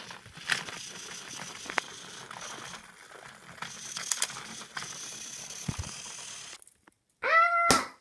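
Motorized Thomas & Friends toy train engine running along plastic track: a steady whirring of motor and gears with scattered clicks, which stops suddenly. Near the end comes a short vocal cry that rises and falls.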